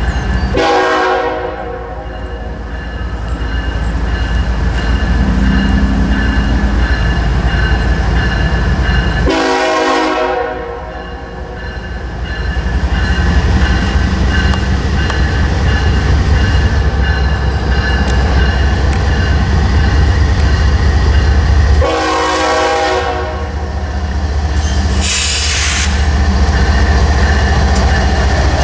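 Freight diesel locomotive's air horn sounding three long blasts as the train approaches a grade crossing, over a steady ringing from the crossing signal. The deep rumble of the lead locomotives' engines grows louder through the second half as they near.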